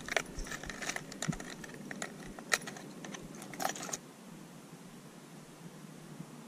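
Irregular light clicks and rattles of gear carried by someone walking on a concrete sidewalk, with footsteps. The clicks stop abruptly about four seconds in, leaving a faint steady outdoor hiss.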